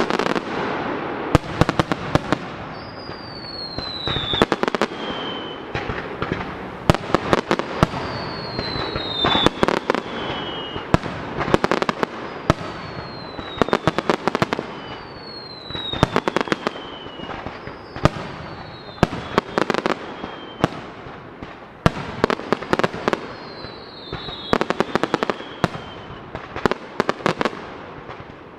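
Starmine fireworks barrage: rapid volleys of sharp shell bursts and launch reports in clusters every second or two, with a high falling whistle recurring about every two seconds.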